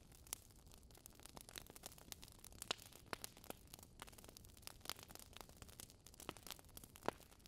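Faint, irregular crackling and clicking over a low steady hiss, close to silence.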